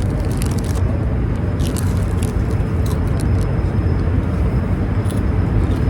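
Steady low rumble of a jet airliner's cabin noise on approach to landing, with a few light clicks and rustles.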